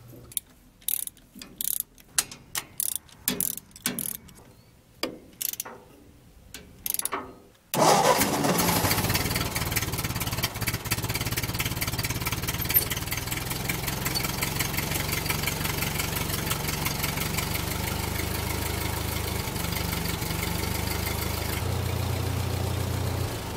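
A scatter of sharp clicks and taps from hand tools, then about eight seconds in the Ford 8N tractor's four-cylinder flathead gasoline engine comes in abruptly and runs at a steady idle. The engine has just been tuned with a rebuilt carburetor and new spark plugs. Its low note shifts slightly near the end.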